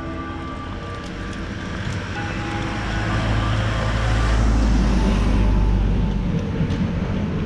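A small cab-over truck drives past close by. Its engine and tyre noise builds to a peak about four to five seconds in, then fades.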